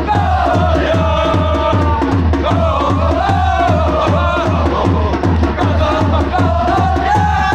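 Football supporters singing a chant together over a steady, repeating bass drum beat, a player call from the stands.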